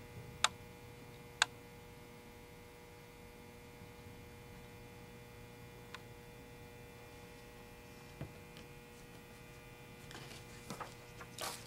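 Steady electrical mains hum, with a couple of sharp small taps about half a second and a second and a half in, and a short rustle ending in a louder click near the end.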